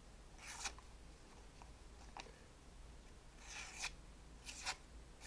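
Spyderco Endura folding knife slicing through a sheet of notepaper in a few short, faint rasping strokes, a sharpness test on the freshly reground blade.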